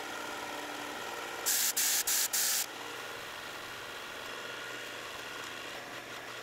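Electric disc sharpener running with a plane blade held on its spinning abrasive disc: a steady motor hum under a grinding hiss. About a second and a half in come four short, loud hissing bursts in quick succession.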